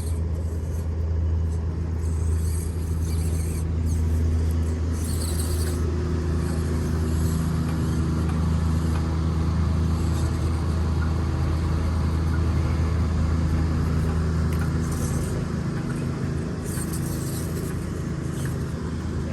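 A motor vehicle's engine running steadily: a low, even hum that eases off a little near the end.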